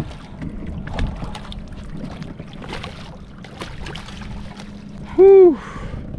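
A hooked freshwater drum (sheepshead) splashing at the surface beside the boat and being scooped into a landing net: irregular splashes and water sloshing, with a steady low hum underneath. A loud exhaled "whew" near the end.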